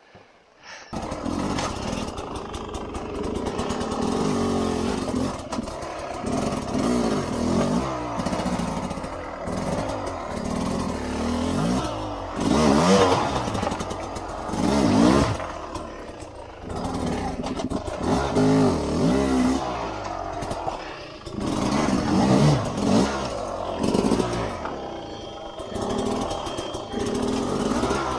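Two-stroke engine of a Sherco 250 SE-R trail bike, coming in suddenly about a second in, then running and revving in repeated surges as the throttle is blipped to climb over rocks. Rocks clatter and scrape under the tyres.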